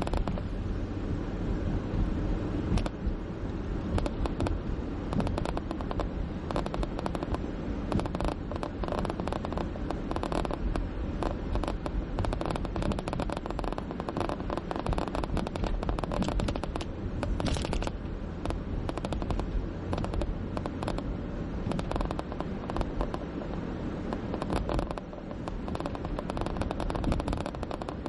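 Car driving on a city street, heard from inside: a steady low road rumble under a dense, irregular crackling rattle of many rapid clicks.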